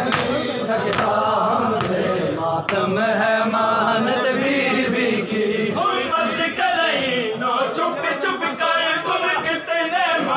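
Group of men chanting a mourning noha in unison during matam. In roughly the first three seconds, sharp slaps of hands striking chests cut through the chanting.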